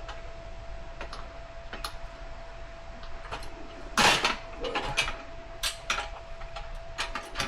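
Scattered metal clicks and knocks of tire tools against a spoked dirt bike rim while the tire bead is worked onto it, with a louder scraping clatter about four seconds in and a few sharp clicks after.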